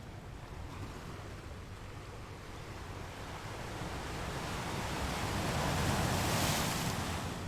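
Sea waves washing in on the shore: a steady rush of surf that swells to a peak about six seconds in as a wave breaks, then eases back.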